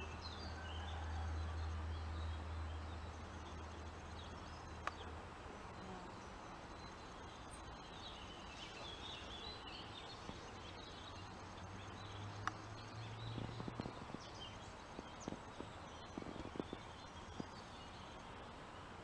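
Outdoor ambience of small birds chirping over a steady background hiss, with a low hum for the first five seconds and a few soft ticks later on.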